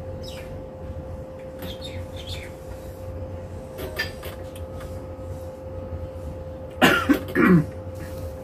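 A person coughing, three quick coughs near the end, over a steady hum and low rumble.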